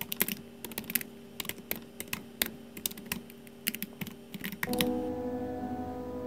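Rapid, irregular keyboard keystrokes, a typing sound that goes with text being typed on screen. About three-quarters of the way through, the typing stops and soft sustained piano notes begin.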